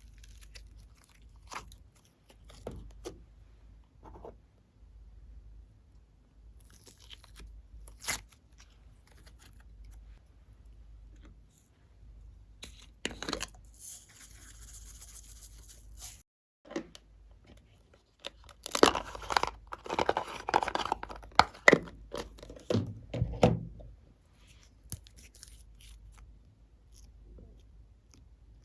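Close-up crackling, tearing and scraping of slime and its mix-ins being worked by hand, with scattered sharp clicks. A dense, louder spell of crackling comes about two-thirds of the way through.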